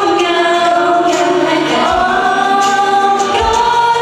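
Idol-pop song over a stage PA: female voices singing long held notes over a backing track, with a deep drum thump about two seconds in and again near the end.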